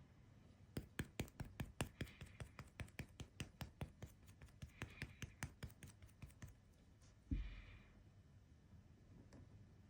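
Quick run of light taps, about three or four a second for some six seconds, as a small hand-held tool is dabbed on the work during seal-stamping and rubbing, followed by a single heavier thump just after seven seconds in.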